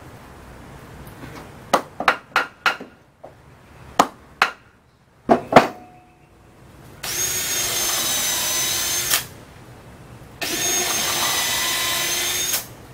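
A power drill boring pilot holes into wooden framing, running twice at steady speed for about two seconds each, in the second half. Before that come several sharp clicks and knocks.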